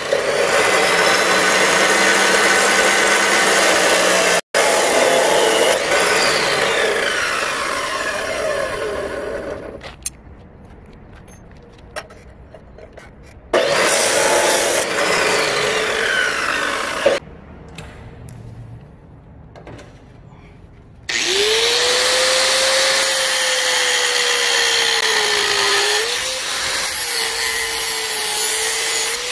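Abrasive chop saw cutting through a Damascus steel knife blade, its pitch falling as it winds down, then a second short cut near the middle. Near the end an angle grinder spins up with a rising whine that settles into a steady tone as it grinds the steel blade, dipping briefly as it bites.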